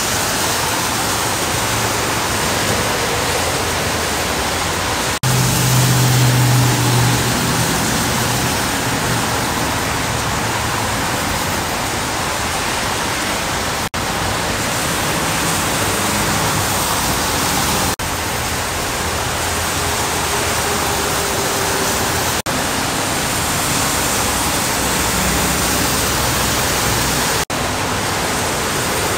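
Steady rushing hiss of heavy rain and tyre spray from traffic on a wet freeway. About five seconds in, a passing truck's engine adds a louder low drone for a couple of seconds.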